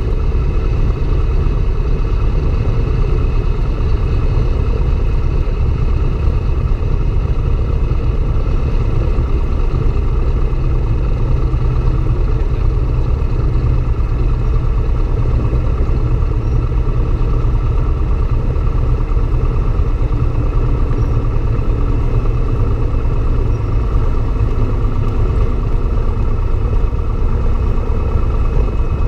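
Single-engine light aircraft's piston engine and propeller running at low power as the plane rolls out on the runway after landing: a steady, even low rumble.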